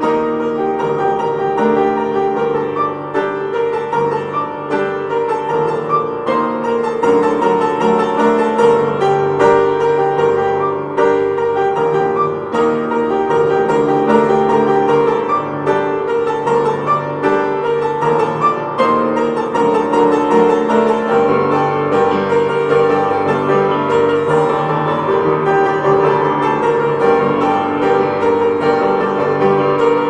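Piano music: a continuous stream of sustained notes and chords.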